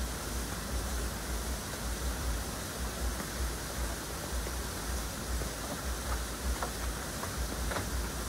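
Steady rushing noise with an uneven low rumble, with a few faint ticks in the last couple of seconds.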